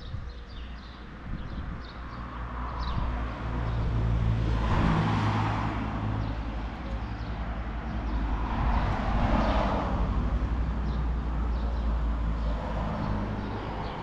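50 cc Aprilia SR 50 scooter engine running through a LeoVince TT aftermarket exhaust. The sound swells twice, about four seconds in and again near nine seconds.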